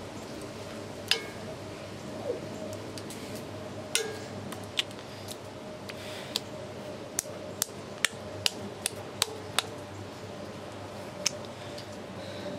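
Metal spoon clinking and scraping against a 12-inch cast-iron Dutch oven while spreading apple pie filling, with scattered sharp clinks and a quick run of about seven taps, two or three a second, about two-thirds of the way through.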